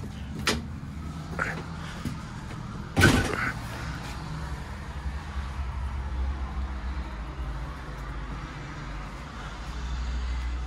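Irisbus Citelis city bus with its Iveco 7.8-litre diesel idling, a steady low hum. A couple of light clicks come in the first two seconds, and a loud clunk about three seconds in.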